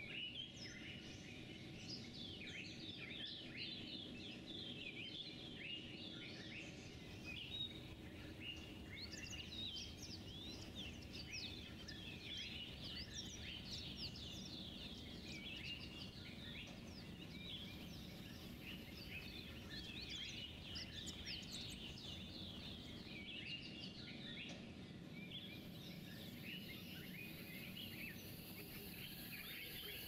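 A dense chorus of small birds chirping, many short calls overlapping, over a low steady background rumble.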